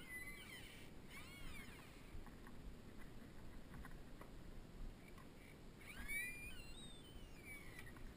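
A few faint, high chirping calls that rise and fall, about a second in and again around six seconds, over soft footsteps.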